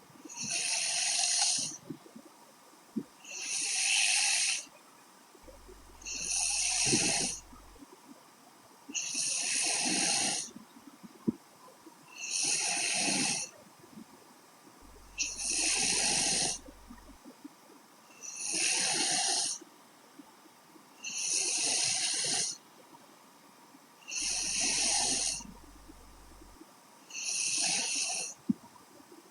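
A young woman snoring in her sleep, slow and regular: about ten airy, rasping snores, one every three seconds or so, with quiet gaps between them.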